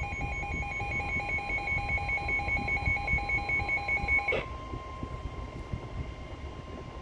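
Emergency alert for a severe thunderstorm warning: a weather radio's rapid pulsing alarm beep stops abruptly about four seconds in. Under it runs the steady single-pitch warning alarm tone of NOAA Weather Radio, which carries on alone afterwards.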